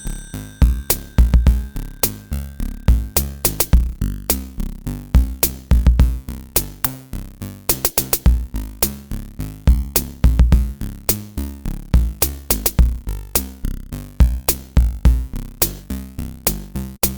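Electronic background music with a drum-machine beat: sharp, evenly spaced hits over heavy bass thumps.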